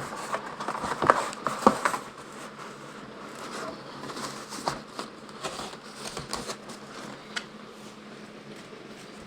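Handling and opening of packaging: scattered rustles and sharp clicks, loudest in the first two seconds, then fainter sparse ticks.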